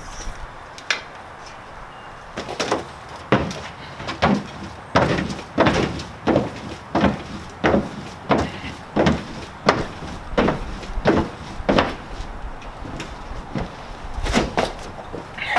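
A run of regular sharp knocks, about one every two-thirds of a second, from a floor jack being worked as the lifted truck is let down, then a few softer knocks near the end.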